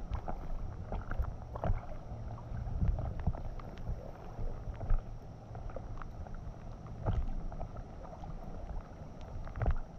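Fast, high creek water swishing and lapping against an inflatable kayak as it drifts, with a low rumble and many scattered sharp taps of raindrops on the camera housing. A few of the taps are louder.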